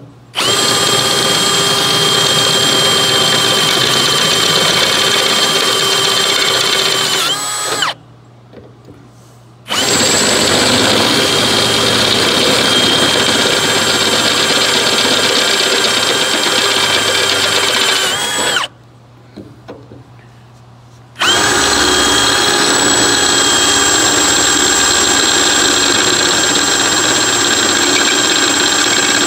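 Ridgid cordless drill boring through a metal plate with a twist bit, enlarging a pilot hole, running at a steady high whine in three long runs separated by two pauses of about two seconds.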